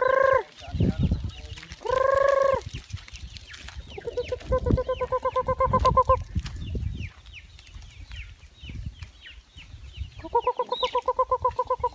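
Chickens clucking: two longer calls near the start, then two fast runs of clucks at about eight a second, with many thin high peeps throughout.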